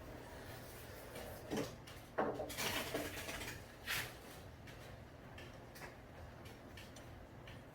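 Brief handling clatter: a knock about a second and a half in, a scraping rattle from about two to three seconds in, and another knock near four seconds.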